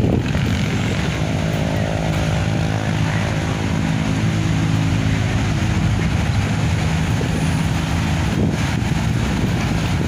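A steady engine drone, holding one pitch from about a second in until near the end, under wind buffeting the microphone.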